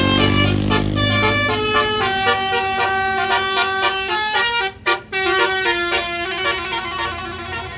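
A bus's multi-note telolet air horn playing a tune of stepped, changing notes over the low rumble of the bus engine. The tune breaks off for a moment about five seconds in, then goes on.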